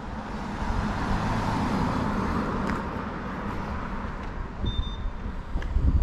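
A car driving past on the street, its tyre and engine noise swelling and then fading away over the first few seconds.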